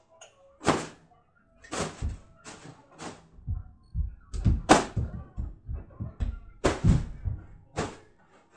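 About a dozen irregular thuds and slaps: a child playing ball indoors, jumping about and hitting the ball.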